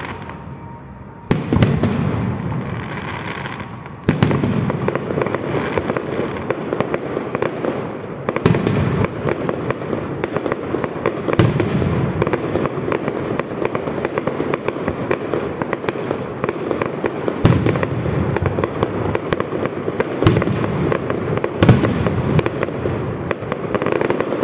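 Aerial fireworks display: two shell bursts go off with sharp bangs about one and four seconds in, followed by continuous dense crackling with a heavier bang every few seconds.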